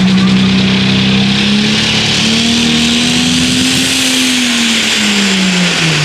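Twin-turbocharged diesel pulling truck's engine held at high revs, its pitch rising gently and then dropping away near the end, with a hissing, whining turbo sound above it. The two turbochargers are not spooled up enough, and the truck can't get going.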